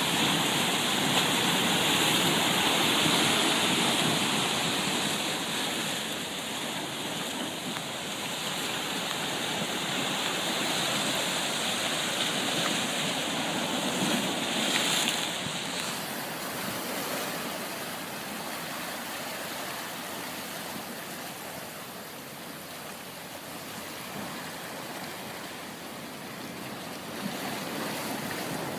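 Ocean surf: waves breaking and washing in a continuous rushing that swells and ebbs, loudest in the first few seconds, with a brief surge about halfway and another rise near the end.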